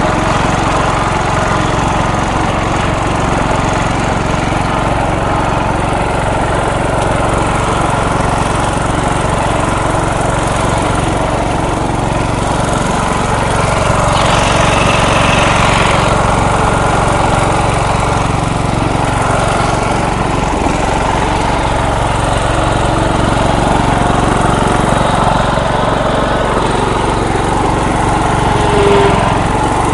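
MTD riding lawn mower engine running steadily while the mower climbs over dirt mounds, the engine kept on a little choke to stop it bogging down. The sound swells briefly about halfway through.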